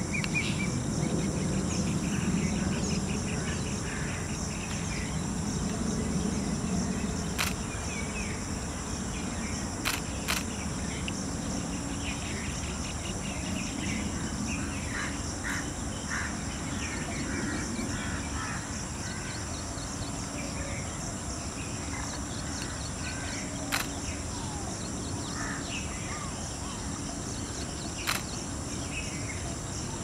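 Outdoor scrubland ambience: insects trill steadily at a high pitch while small birds give short scattered chirps, over a low background rumble that is strongest in the first several seconds. A few sharp clicks stand out, about a third of the way in and again near the end.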